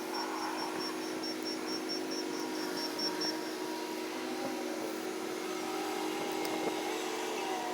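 Steady mechanical hum of running machinery, with a rapid high pipping, about five pips a second, that stops about three and a half seconds in.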